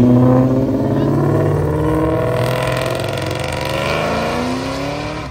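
A car accelerating away, its engine note climbing steadily in pitch for several seconds, loudest at first and fading near the end.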